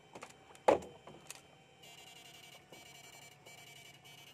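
Electrofishing rig switched on in pulses: a high electric buzz in three spells of under a second each, with short breaks, starting about two seconds in. Before it, about three-quarters of a second in, a single sharp knock or splash is the loudest sound.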